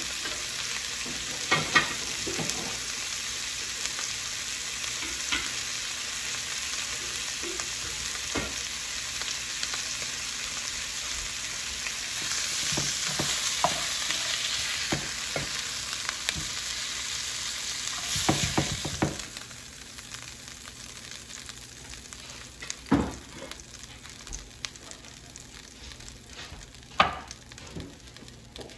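Beef strips sizzling in an electric skillet, with the scrape and knock of a spatula turning them. About two-thirds of the way through, the sizzle drops off as the meat comes out of the pan. A faint hiss and a few clacks of the utensil on the pan are left.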